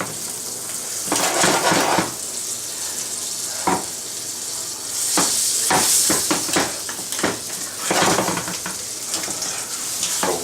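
Tortilla sandwiches sizzling in a hot frying pan greased with a butter spread, with repeated short scrapes and clinks of a large spatula against the pan.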